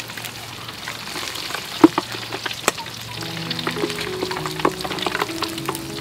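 Pork skin deep-frying in hot oil in a steel wok: a steady sizzle broken by sharp crackling pops, the loudest about two seconds in and again just before three, as metal tongs turn the pieces.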